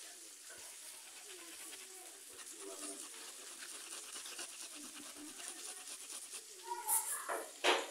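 A paintbrush scrubbing rapidly back and forth on cloth, a fast dry rasping, with two louder brief bursts near the end.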